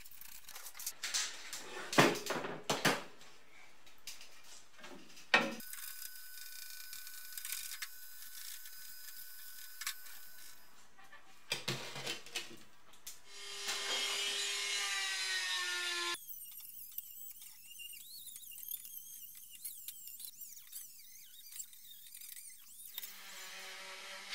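Hand tools and small power tools working on rusty steel car-body parts. It opens with a few sharp clicks and knocks, then a steady high-pitched tool whine. A louder whine follows, dips in pitch and stops suddenly about sixteen seconds in, then comes a thin hiss, and a small hand-held grinder starts near the end.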